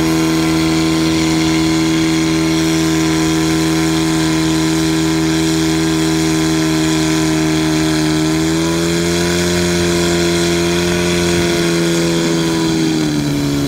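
Portable fire pump engine running steadily at high revs while pumping water out to the hose lines. Its pitch rises slightly about eight seconds in and drops near the end.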